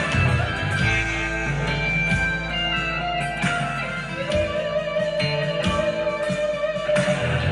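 Harley Benton SC-DLX electric guitar played through a Blackstar ID:15 TVP amplifier, picking sustained notes and chords.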